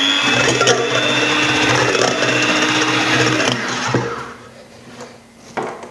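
Electric hand mixer whisking egg whites in a stainless steel bowl, a steady motor whine with the beaters whipping the whites to a foam. The motor sound falls away about three and a half seconds in, followed by a few light knocks.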